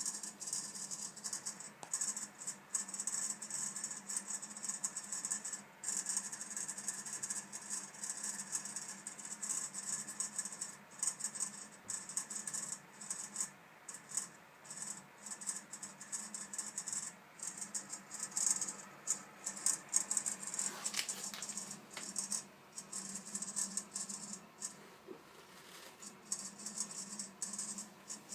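Viessmann Vitodens 200 gas condensing boiler making an irregular crackling rattle, a dense stream of fast ticks that keeps going and swells now and then, over a steady low hum. This noise appears when the boiler runs above 50 °C.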